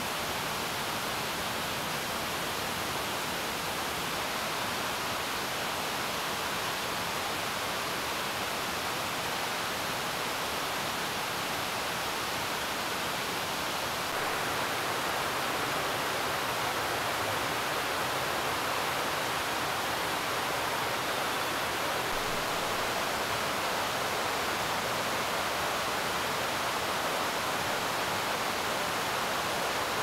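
Steady rushing of a mountain headwater stream: an even hiss of water with no separate events, a little louder about halfway through.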